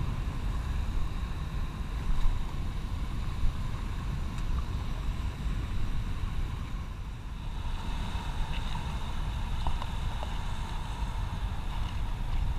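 Rough sea surf washing over a shallow rocky reef, under a steady low rumble of wind on the microphone.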